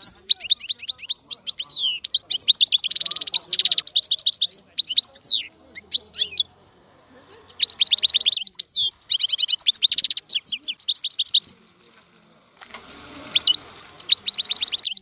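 European goldfinch singing: fast twittering phrases of rapid, high, downward-sweeping notes, broken by two short pauses. In the last couple of seconds a steady background hiss runs under the song.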